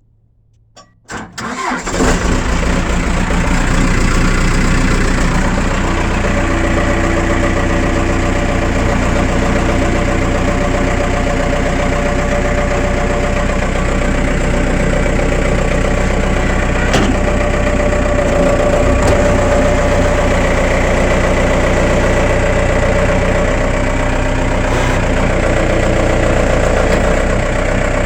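Case 1845 skid steer's diesel engine starting cold after sitting overnight: a brief crank, catching about two seconds in, then running steadily at idle.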